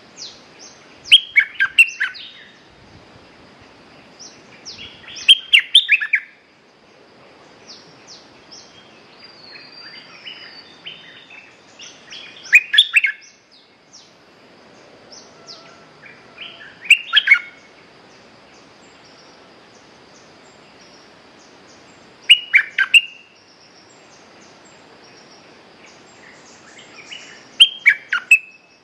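Caged decoy bulbul singing in short bursts of quick, loud chirping notes, six phrases about every five seconds.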